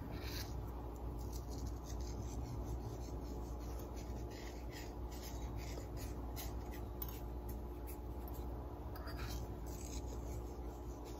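Coarse kosher salt sprinkled by hand onto a raw chuck roast on a ceramic plate: faint, scattered ticks and light rasping of the grains landing and fingers rubbing, over a low steady hum.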